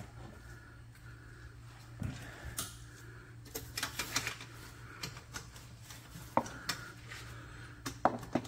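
Scattered light metallic clinks and taps from tools and exhaust hardware being worked under a car, in a few short clusters, over a steady low hum.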